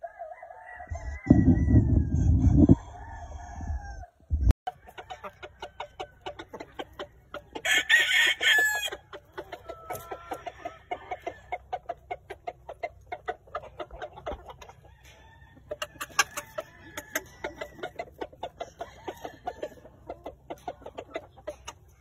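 Gamefowl roosters crowing and clucking: a long crow over the first four seconds with a low rumble under its middle. After that, fainter crows and clucks come over a long run of rapid sharp clicks, with a loud harsh burst about eight seconds in.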